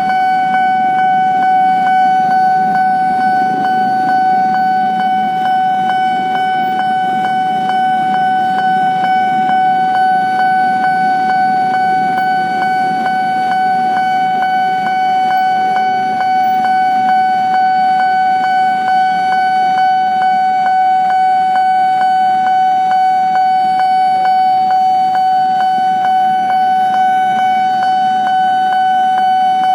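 Level-crossing warning alarm sounding without a break: one steady high tone with overtones, pulsing very rapidly. A low rumble of passing rail or road traffic runs underneath it.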